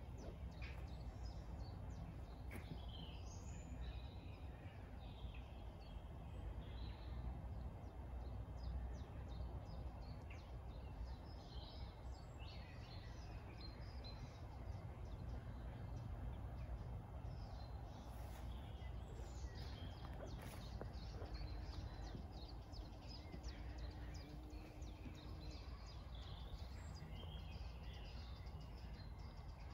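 Birds chirping and singing in scattered short phrases over a steady low background rumble.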